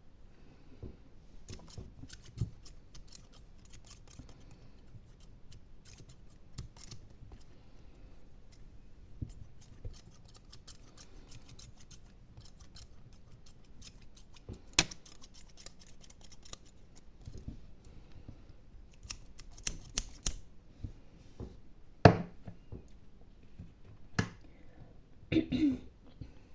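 Close-up ASMR scratching and gripping sounds on an object right at the microphone: crisp clicks and scrapes in irregular runs, with a few louder knocks in the second half.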